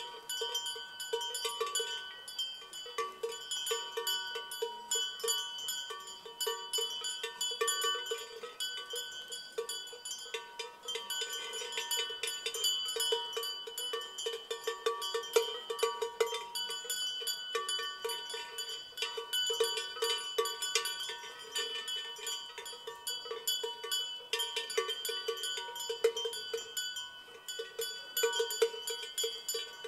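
Several cowbells worn by livestock, ringing irregularly and without pause, their different tones overlapping.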